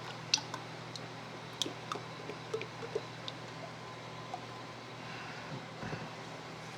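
Scattered light clicks and taps of shock-absorber parts being handled, the sharpest about half a second in, over a steady low hum.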